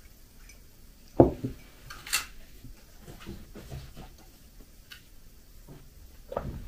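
A ceramic mug set down on a kitchen table with a thump about a second in, followed by light knocks and handling rustles and another thump near the end.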